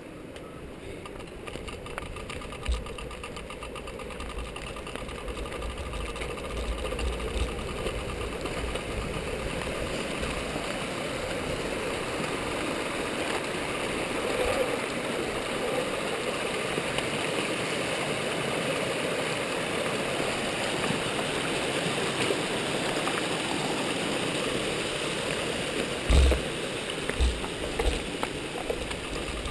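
A steady rushing noise of running water and wind, heard on a mountain bike's handlebar-mounted camera, growing over the first dozen seconds. Low buffeting thumps come early on, and a few heavy knocks near the end as the bike jolts over rocks.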